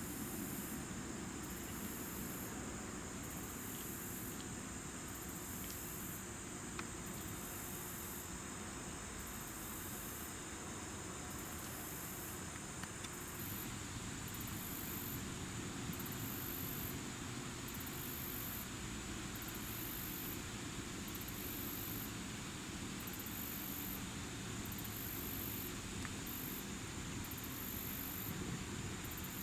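Insects chirping outdoors in late summer: a high-pitched pulsing, about one pulse a second, over a steady high insect hum.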